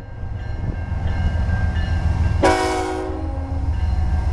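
Approaching diesel freight locomotive: a steady low engine rumble, with a blast of its air horn coming in about halfway through, held for about half a second and then trailing away.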